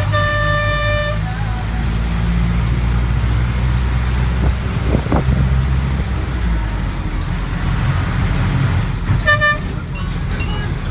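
Bus engine rumbling steadily as the bus drives through town traffic, heard from inside the cabin. A horn sounds for about a second at the start, and there is a shorter toot near the end.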